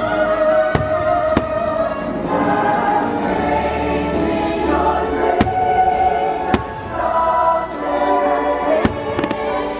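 Fireworks show music with a choir singing, with firework shells bursting over it: about half a dozen sharp bangs scattered through, two close together near the end.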